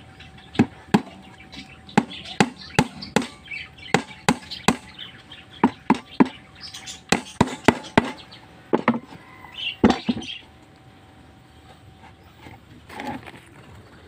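Claw hammer driving small nails into a plywood box: a run of about twenty sharp strikes, some in quick pairs, that stops about ten seconds in.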